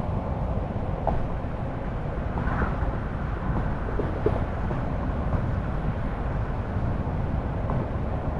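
A car driving on the road: a steady low rumble of tyre and engine noise, with a few faint clicks.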